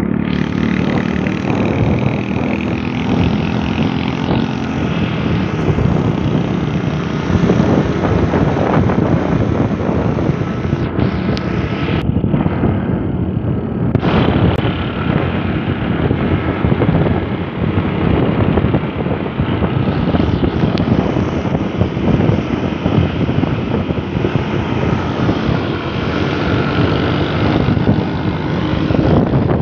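Motorcycle engine running while riding at speed, mixed with steady wind rush.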